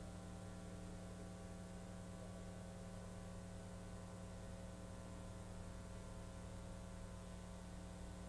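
Faint, steady electrical mains hum with its overtones, unchanged throughout. No sound from the finish sander in the picture can be made out.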